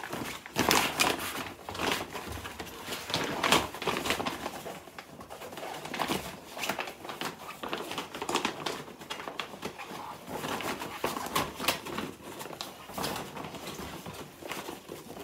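Stiff recycled sailcloth rustling and crackling in irregular bursts as a sewn tote bag is turned right side out and its corners pushed out by hand.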